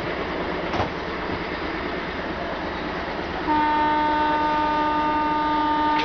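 ALCO diesel locomotive (a WDG3A) approaching out of sight, its engine chugging in a low rumble. About halfway through it sounds its horn in one long, steady blast that starts abruptly and holds.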